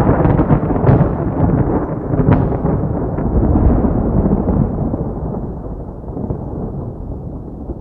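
A long rumbling boom sound effect with crackles through it, slowly fading over several seconds.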